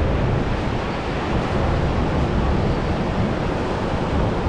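Steady noise of ocean surf and wind on the microphone, rushing evenly with no distinct events.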